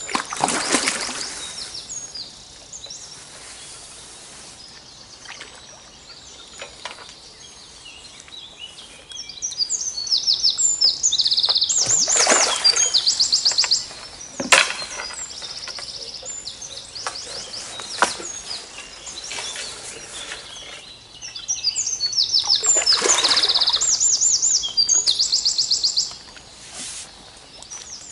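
A songbird sings close by in two long, loud phrases of fast, high repeated notes and trills, one about ten seconds in and one about twenty-two seconds in. Other birds call and sing more faintly throughout.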